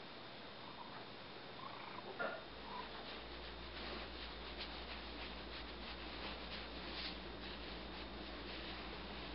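Tabby cat being stroked: it gives one short chirp about two seconds in, and the hand rubbing through its fur makes light scratchy ticks after that. A low steady hum comes in just after the chirp.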